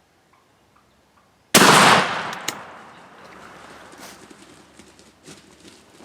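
A single 20-gauge shotgun shot about a second and a half in, sudden and loud, its report fading over about a second; faint scattered clicks and rustles follow.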